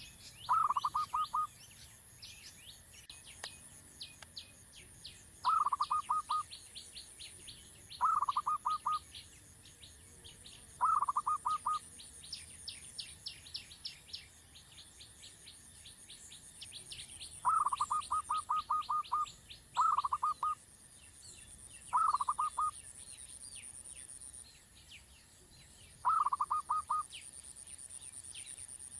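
A bird calling in eight short bursts of rapid pulsed notes, spaced a few seconds apart, over constant high chirping of other birds and a steady high-pitched insect drone.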